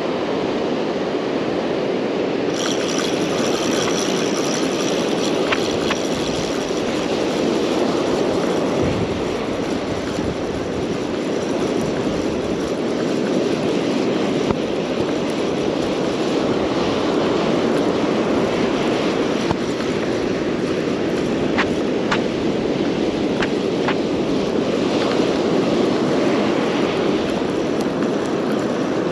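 Steady roar of ocean surf and wind at the water's edge, with a few faint ticks late on.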